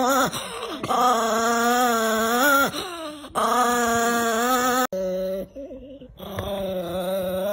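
Small white Chihuahua giving long, wavering whine-growl vocalisations, a 'talking' sound, in several drawn-out phrases with short breaks between them.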